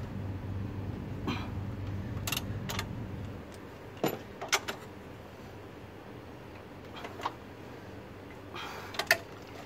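Socket ratchet and metal tools clicking and clinking as the engine-mount nuts are tightened: short sharp clicks, single or in quick pairs, a second or two apart. A low steady hum underneath stops about three and a half seconds in.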